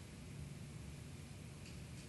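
Quiet room tone: a steady low hum under faint hiss, with one faint click near the end.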